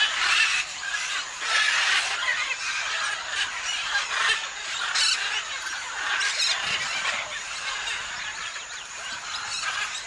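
A flock of parrots and macaws calling all at once in a dense, unbroken chorus of overlapping calls.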